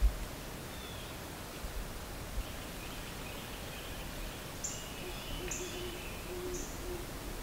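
Woodland ambience: a steady background hiss with birds calling, including short sharp high chips about once a second in the second half. A brief low thump comes at the very start.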